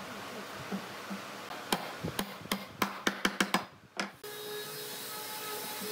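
About nine sharp hammer knocks in quick succession on a pine chair frame, as a leg is tapped into its joint. They stop after about four seconds and a steady machine hum with a few held tones takes over.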